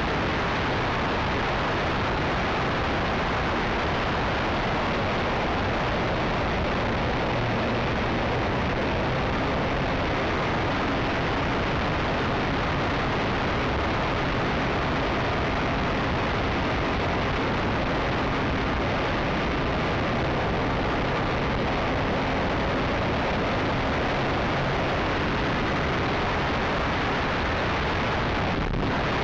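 Gasoline engine and propeller of a Yak 54 RC aerobatic plane in flight, heard from a camera on the rudder in the airflow: a dense, steady rush of engine, propeller and wind noise.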